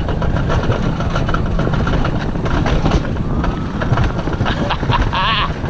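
Alpine coaster sled running fast along its rail: a continuous loud rumble and rattle of the wheels on the track, mixed with wind noise on the microphone.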